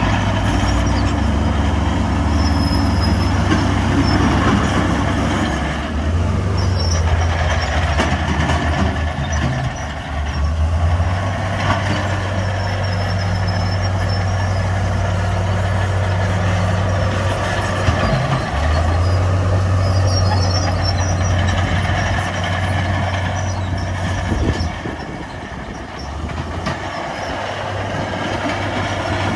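Heavy diesel earthmoving machinery running, a steady low engine hum whose pitch shifts several times, dipping in loudness for a few seconds near the end.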